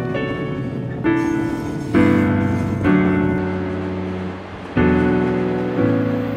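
Background piano music: a slow piece of chords, each struck and left to ring and fade, about one a second.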